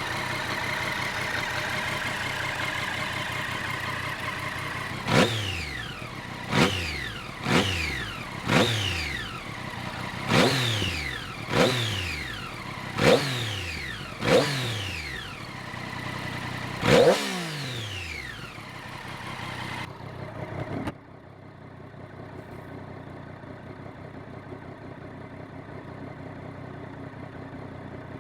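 Triumph Daytona 675 inline-three engine running steadily, then revved in nine quick throttle blips, each rising sharply and falling back to idle. About three-quarters of the way through the engine sound drops away to a quieter steady hum.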